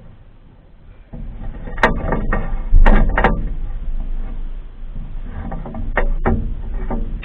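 Handling noise with several sharp knocks, the loudest about three seconds in.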